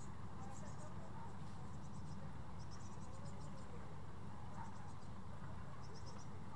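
A steady low rumble under short, repeated trains of rapid, high chirps from insects, a few pulse-trains every second or two.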